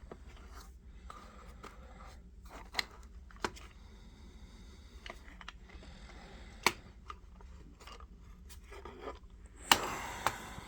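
Hands handling small cardboard boxes of .22 cartridges: soft rustling and scraping with a few sharp clicks, and a louder rustle of handling near the end.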